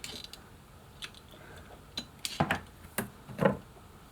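Hand ratcheting pipe cutter clicking as it is closed step by step on plastic water pipe, a few irregular sharp clicks and knocks, the loudest about two and a half and three and a half seconds in.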